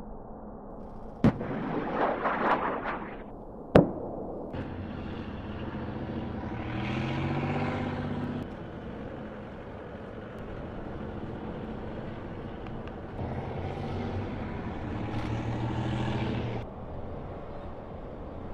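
Two sharp bangs of gunfire or explosions about two and a half seconds apart, with rapid crackling between them. A steady rumble follows, swelling twice and dropping away near the end.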